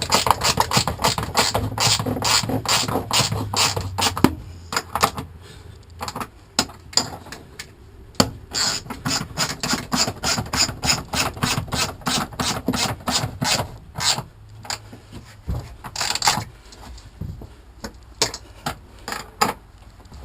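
Ratchet wrench clicking as two spring-loaded bolts are tightened down. A dense run of rapid clicks lasts about four seconds, then the clicking comes in shorter strokes with brief pauses.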